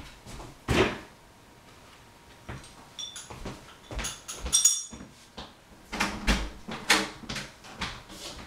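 Household clatter: scattered knocks and bumps, with a cluster of short ringing clinks of hard objects about three to four and a half seconds in.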